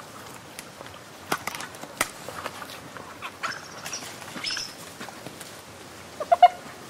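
Spotted hyena and hooded vultures at a carcass: sharp cracks and scuffling of feeding, a few brief high squeaks, and two or three short pitched calls in quick succession about six seconds in.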